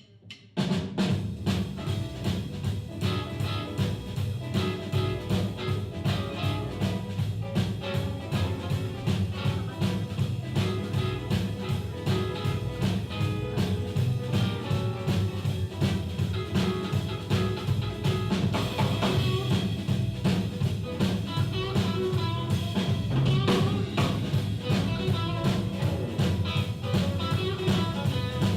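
Live blues band playing an instrumental passage on drum kit and guitar. It starts suddenly about half a second in, with a steady, busy beat.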